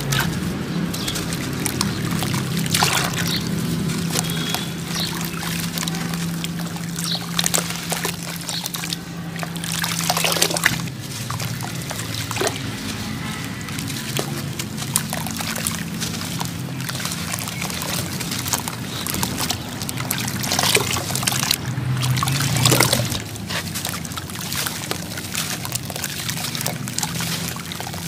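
Soaked sand-cement chunks being squeezed and crumbled by hand in a metal basin of water: sloshing, pouring and trickling as wet grit breaks apart and falls back into the water, with several louder splashes.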